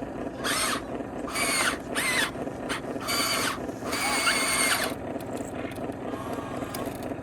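Electric gear motors of radio-controlled toy construction machines whining in about five short bursts, some bending in pitch, over a steady mechanical buzz.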